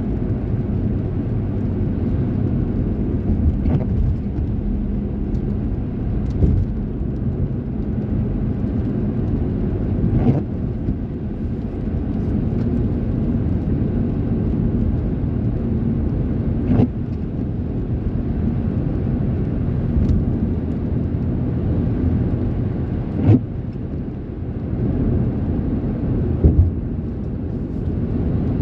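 Steady low rumble of a vehicle in heavy rain, with a few sharp knocks at irregular intervals.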